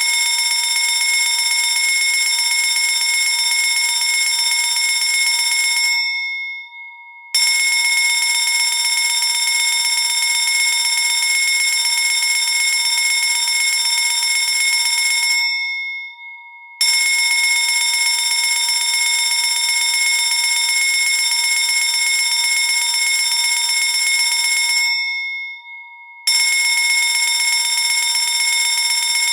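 Fire alarm bell ringing loudly and continuously. It stops three times, for about a second and a half each, fading away before every stop and starting again abruptly.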